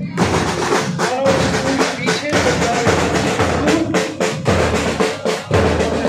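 Marching band drum section playing a marching beat: quick snare drum strokes and rolls, with bass drum beats booming through the second half.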